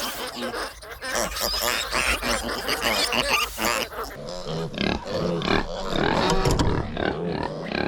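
Scraping and rustling, then from about halfway a farm animal calling over and over in short grunting, pitch-bending cries, impatient to be fed.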